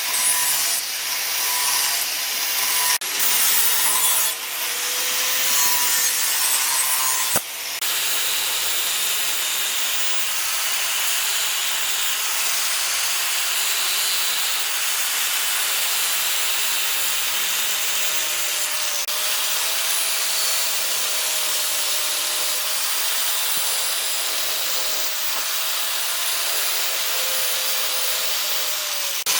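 A power tool working wood, likely shaping the sword's wooden handle. It gives a steady hiss with a faint wavering motor whine under it, and the sound breaks off abruptly about 3 and 7 seconds in.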